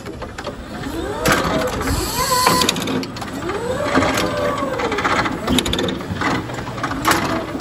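Forklift at work: its motor whine rises and falls in pitch several times, with sharp clunks and rattles from the mast and forks, the loudest about a second in, around four seconds and near the end.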